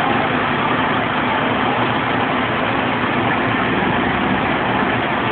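Diesel engines of an FDNY fire engine and ladder truck running steadily at idle, with no siren.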